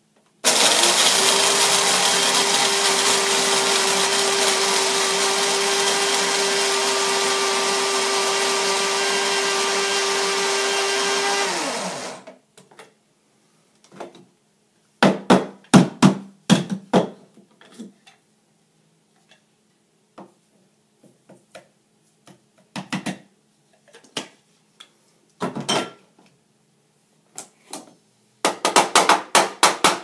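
Mr. Coffee IDS77 blade coffee grinder grinding beans for a medium grind: its motor runs steadily for about eleven seconds, rising in pitch as it spins up and dropping as it stops. After it stops comes a scatter of short knocks and clicks.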